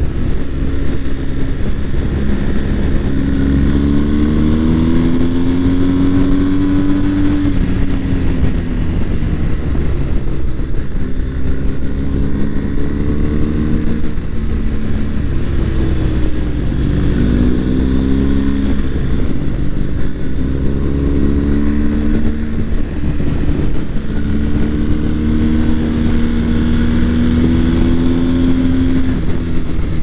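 BMW R1250 GS boxer-twin engine under way on the road, its note rising and falling several times as the rider accelerates and eases off, over a steady low rumble of wind and road noise.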